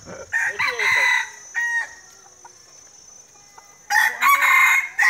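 Rooster crowing twice: a loud crow at the start and another near the end.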